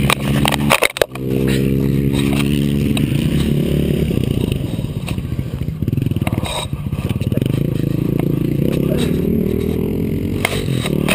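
Dirt-bike engine running at a steady low pitch, cut by a brief knock and dropout about a second in, then rougher, with scraping and knocking on the camera, the pitch rising a little near the end.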